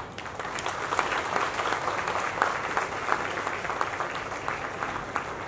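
An audience applauding: many hands clapping, breaking out suddenly.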